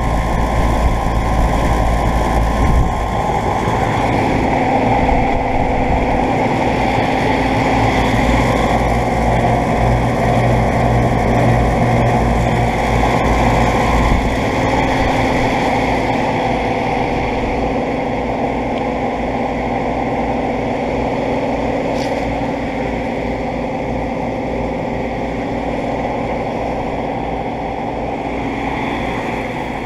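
Outdoor central air conditioner condensing units running: a steady fan whoosh over the compressor hum, with a few steady tones. It gets slightly quieter over the second half.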